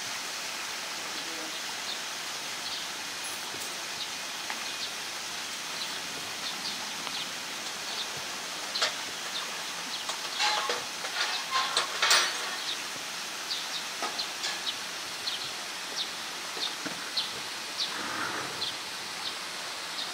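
Steady rushing background noise, with faint short high chirps repeating about twice a second and a cluster of louder clicks and knocks about ten to twelve seconds in.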